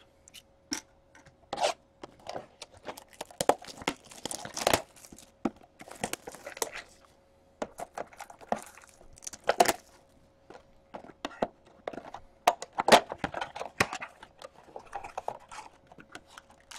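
Plastic shrink-wrap being torn and crinkled off a sealed trading-card blaster box, with scattered crackles and sharp taps as the cardboard box is handled and opened.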